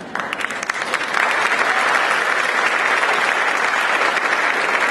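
Audience applauding: a few scattered claps at first, building within about a second into steady, dense applause.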